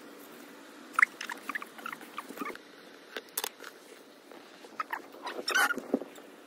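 Thin plastic bag crinkling and crackling as hands squeeze and fold it: a run of irregular short crackles, busiest about five and a half seconds in.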